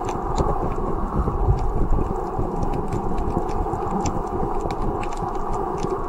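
Muffled underwater sound of water moving against a submerged camera, a steady low rush with frequent irregular clicks and knocks.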